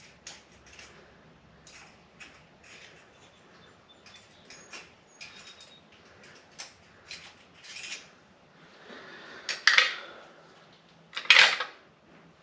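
Small metal parts and tools clinking and being handled, with scattered light clicks throughout and two louder scraping, rustling sounds near the end.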